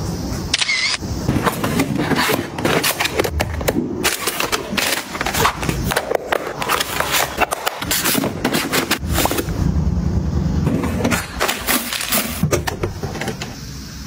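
Close-up handling noises: a quick string of clicks, taps and knocks of hard plastic storage boxes being picked up and slotted into a drawer, with some rustling.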